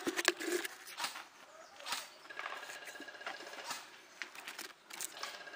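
Airsoft electric guns firing in bursts, a rapid mechanical rattle with a thin whine, about two seconds long from around the middle and again near the end, amid scattered sharp clicks.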